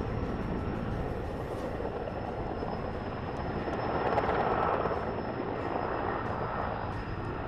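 Sikorsky S-64 Air-Crane firefighting helicopter in flight: a steady rotor and engine rumble with a thin, steady high whine, swelling louder about four seconds in.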